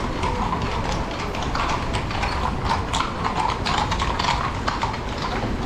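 Horse hooves clip-clopping on the street, a quick irregular run of sharp knocks over steady city street noise.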